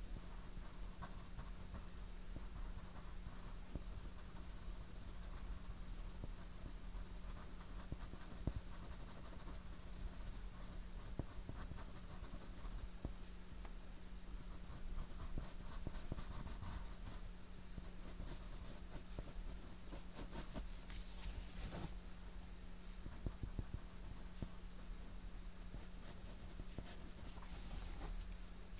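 Pencil lead scratching on drawing paper in quick, repeated shading strokes, with a few brief pauses.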